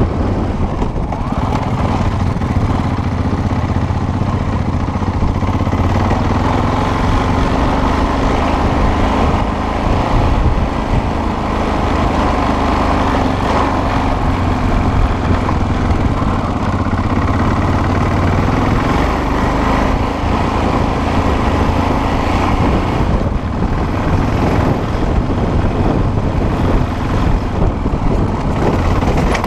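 Off-road motorcycle engine running under way, its pitch drifting gently up and down, over a constant rushing noise.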